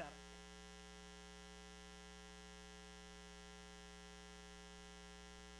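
Near silence apart from a faint, steady electrical mains hum.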